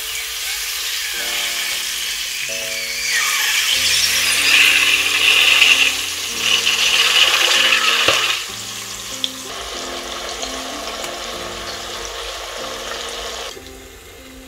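SPAM frying between the hot plates of a Cuisinart waffle maker, a hissing sizzle under background music. The sizzle swells loudest from about three to eight seconds in, then settles to a lower steady hiss that dies down near the end.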